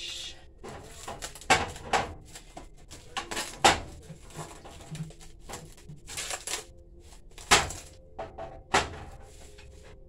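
Plastic cling wrap crinkling as it is pulled off a glass baking dish, with several sharp clicks and clinks of a metal utensil knocking against the glass dish as a fish is lifted out.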